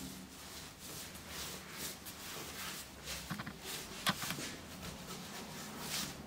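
Hands palm-rolling and pressing a log of yeasted bread dough on a floured wooden worktop: soft repeated swishes and pats, with a single sharp click about four seconds in.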